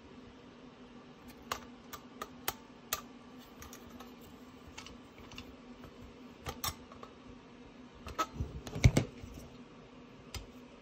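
Small metal clicks and taps from a metal stove leg being poked into the reset-valve hole of an MSR Windburner burner and turned, an attempt to reset its overheat fail-safe and open the release valve. A handful of scattered clicks, with a louder cluster of knocks about eight to nine seconds in; no hiss of gas follows.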